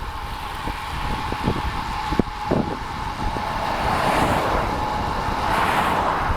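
Wind and road noise on a pocket camera's microphone while cycling at about 30 mph: a steady rush with low buffeting, a few brief knocks, and a steady high hum.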